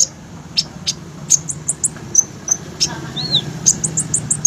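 Brown-throated sunbird (kolibri ninja) singing: a stream of sharp, high chips and quick little runs of notes, with a single arched whistle about three seconds in, over a steady low hum.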